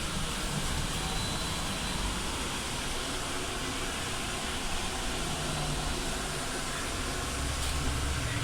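BKM 433000D trolleybus under way, heard from inside the cabin: steady road and running noise with a low rumble.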